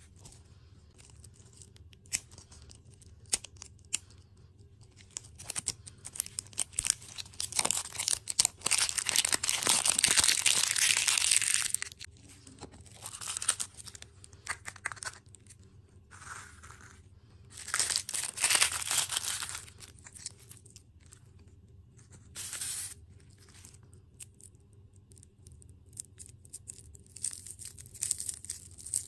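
Plastic or foil food packaging being torn open and crinkled by hand, in irregular bursts. The longest and loudest stretch comes about eight to twelve seconds in, with shorter bursts of crinkling later on.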